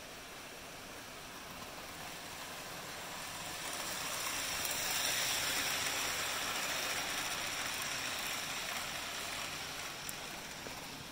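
Model train running past on the layout track, its wheels rolling on the rails with a steady whirring noise that grows louder as it approaches, peaks about halfway through, then fades as it moves away.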